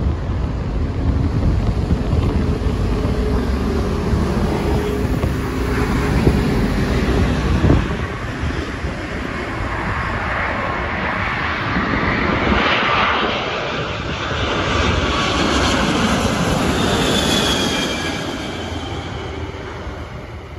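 Boeing 747 four-engine jet airliner flying low overhead on final approach: a jet roar that builds to a peak about two thirds of the way in, with a falling engine whine, then fades. Wind buffets the microphone with a low rumble in the first part.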